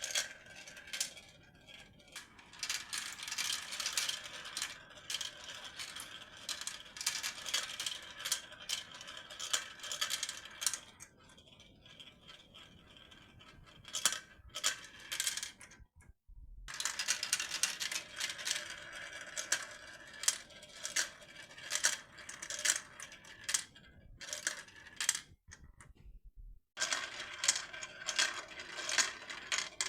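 Marbles rolling and clattering through a toy marble run: long runs of rapid clicks and rattles, broken twice by brief gaps.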